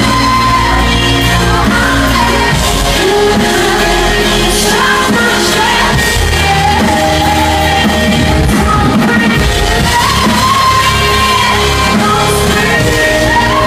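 Live rock band playing loud, a lead vocalist singing over drums, bass and synths, with the echo of a large hall.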